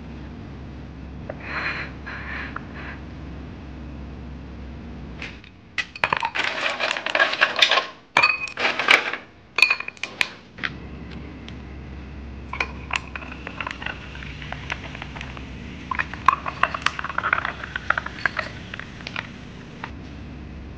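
Ice cubes clattering and clinking into drinking glasses a few seconds in, then a drink poured and stirred over the ice with repeated glassy clinks.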